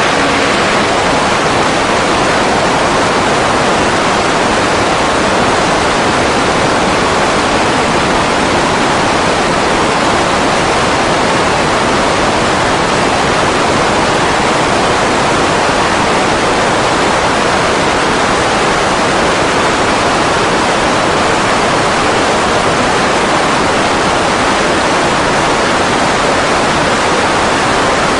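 Loud, steady rushing noise with no distinct engine note: wind and propeller wash from the Grumman G-164 Ag Cat seaplane buffeting the microphone.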